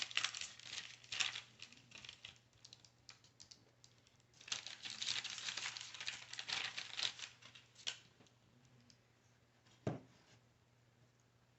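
Parchment paper crinkling and rustling in bursts as biscotti dough is pressed and moved on a lined baking sheet, with a single knock about ten seconds in.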